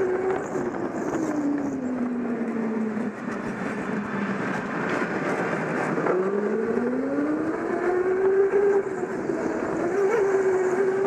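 Go-kart motor heard from on board during a lap. Its pitch drops through a corner, climbs again as the kart accelerates about six seconds in, then holds steady, over a steady rush of noise.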